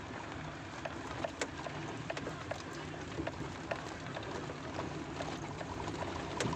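Shallow river stream running over stones, a steady rushing and gurgling with small bubbling blips and a few sharp clicks.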